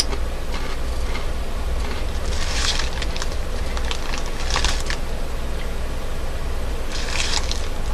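Crunchy Takis rolled tortilla chips being chewed close to the microphone, in three short bursts of crunching, over a steady low hum.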